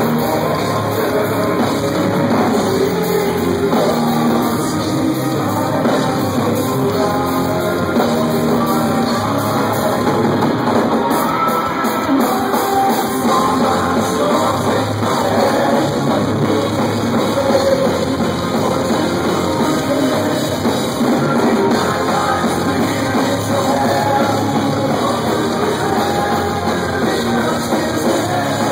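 A live symphonic power metal band playing loud: male lead vocals over distorted guitars, bass guitar and drums, heard from within the audience.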